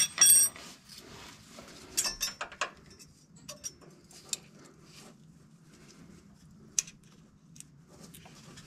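Scattered metallic clicks and clinks of a wrench and feeler gauge against the rocker arms and valve adjusters of an air-cooled VW engine, while a valve is adjusted and its lash checked. A short ringing clink comes just after the start, and a few sharper clicks about two seconds in.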